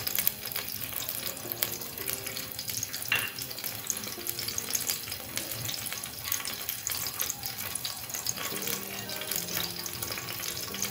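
Cooking oil crackling and faintly sizzling as it heats in a metal pot on the stove: a steady fine crackle of tiny pops.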